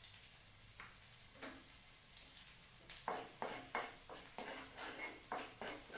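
Sliced onion and garlic frying in oil in a pan with a faint steady sizzle, while a spatula stirs them. From about halfway in come short, quick scraping strokes against the pan, two or three a second.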